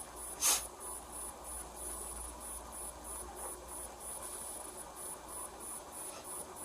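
Quiet small-room tone with a faint, steady high-pitched whine that pulses a few times a second, over a low hum. A brief louder sound comes about half a second in.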